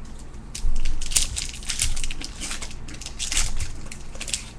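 Crinkling, rustling and quick clicks of trading cards and their pack wrapping being handled and flipped through.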